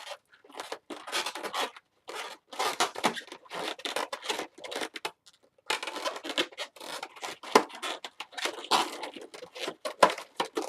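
Latex twisting balloons rubbing against each other and the hands as they are handled and twisted, in irregular bursts with a short pause just past halfway.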